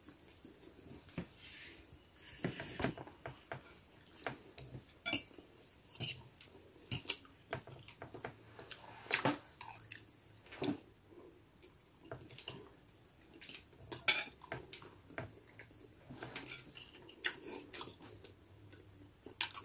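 Close-up eating sounds: a person biting and chewing toasted bread and forkfuls of instant noodles, with a metal fork clinking and scraping on a plate. The sounds come as irregular short smacks and clicks, a few louder ones in the middle.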